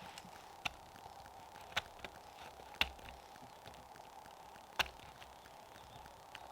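Four sharp, irregularly spaced clicks or distant pops, the loudest near the middle and one near the end, over a steady faint hiss.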